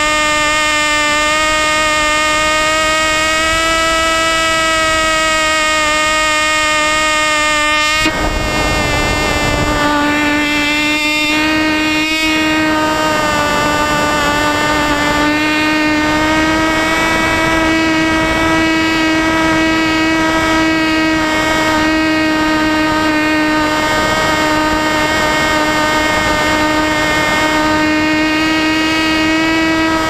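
Small two-stroke model airplane engine on a pylon mount above the sailplane's wing, running steadily at high revs as a high-pitched buzz that sways a little in pitch. A brief rush of wind noise cuts in about eight seconds in.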